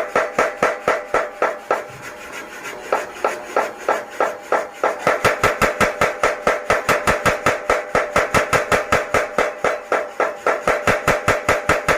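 Blacksmith's mechanical power hammer pounding in a rapid, even rhythm of about four blows a second, each blow with a metallic ring. The blows go lighter and uneven for a couple of seconds early in the run, then settle into a steady beat.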